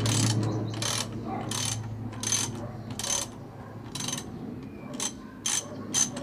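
Socket ratchet wrench clicking in short runs, one run with each back-swing of the handle, about one every second and coming faster near the end, as a motorcycle muffler's mounting bolt is loosened. A steady low hum sits underneath.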